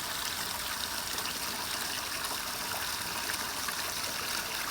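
Steady splashing hiss of water running out of a farm dam's overflow pipe at a small trickle.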